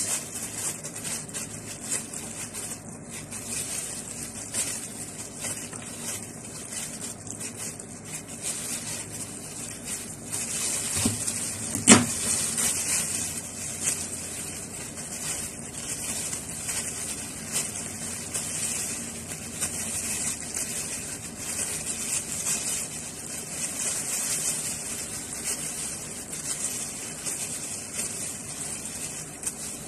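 Kitchen knife shaving thin slivers off a carrot held in the hand: a run of small scraping strokes over a steady hiss, with one sharp click about twelve seconds in.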